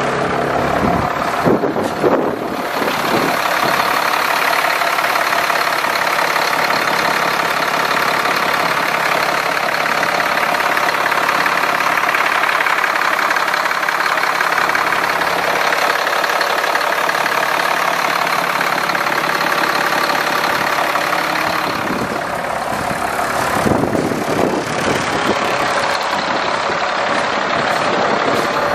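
Caterpillar C7 inline-six diesel engine of a Freightliner M2 flatbed truck idling steadily, recorded close to the engine bay, with a couple of brief bumps about two seconds in and again near the end.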